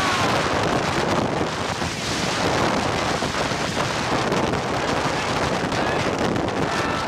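Steady, loud wind noise buffeting the microphone as the rider speeds face-first down a zip line.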